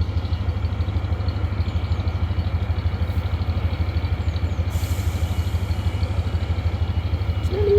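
Narrowboat engine running steadily under way, a low, even, rapid pulse. A brief, slightly falling mid-pitched tone sounds over it near the end.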